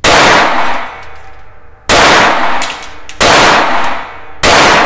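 Four single shots from a Taurus TX22 .22 LR semi-automatic pistol firing standard-velocity rounds, a little over a second apart, each with a short ringing tail.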